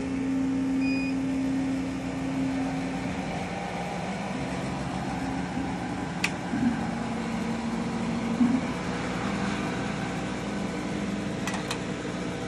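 Omtech 80 W CO2 laser cutter switching on and running: a steady machine hum of its fans and motors comes up at once. A short high beep sounds about a second in, and a few sharp clicks come around six seconds and near the end.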